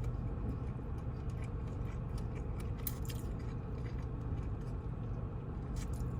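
Chewing and mouth sounds of someone eating Chinese takeout food such as chicken teriyaki and chow mein, with scattered small wet clicks, over a steady low hum.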